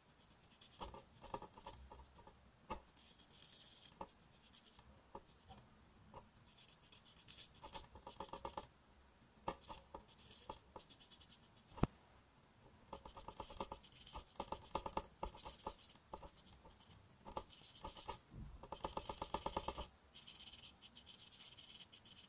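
Faint scratching of a small paintbrush's bristles on paper as short fur strokes are laid down in gouache, coming in bunches of quick repeated strokes several times, with one sharp tap about halfway through.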